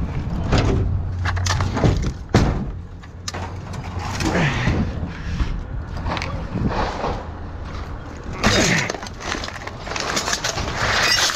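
Repeated clattering and crashing of scrap and debris, such as screws, nails and loose junk, being thrown out into a container, with voices now and then in the background.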